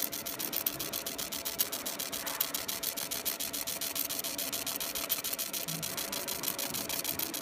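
Fiber laser engraving machine ablating the copper of a printed circuit board: a fast, even hissing crackle, about nine pulses a second as the beam sweeps line by line, over a steady faint hum.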